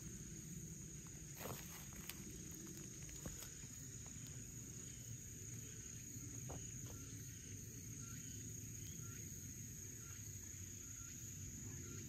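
Faint, steady high-pitched chirring of insects, with a few soft crackles of footsteps on dry fallen bamboo leaves.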